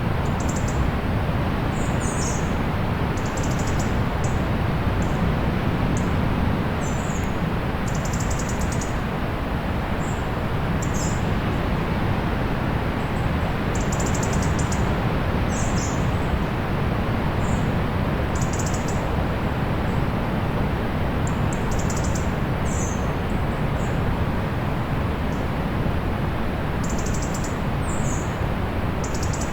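Steady low rush of distant sea surf, with small birds giving short, high chirps and quick trills every second or two over it.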